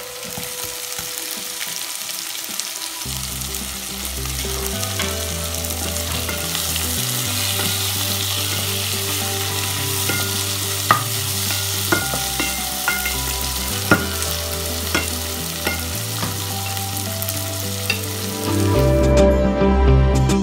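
Sliced onions, cumin seeds and tomato wedges sizzling in hot oil in a pan while being stirred, with a few sharp clicks of the spoon against the pan. Near the end the sizzling gives way to music.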